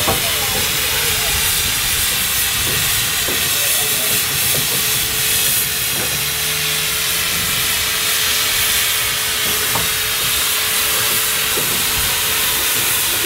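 Steam roller's steam escaping in a steady hiss.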